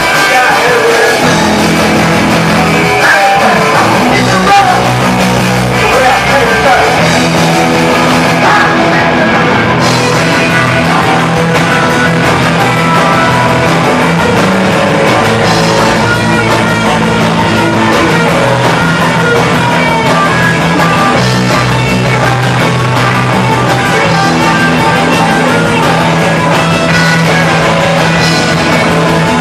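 Punk rock band playing loud, with electric guitars and drums.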